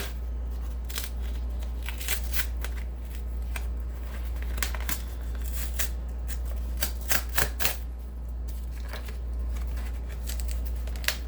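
Cardboard vinyl-record mailer box being pulled and torn open by hand: irregular crackling, tearing and snapping of cardboard, over a steady low hum.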